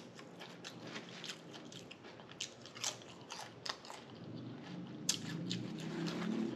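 A person chewing crunchy food close to the microphone, with irregular crisp crunches between quieter chewing.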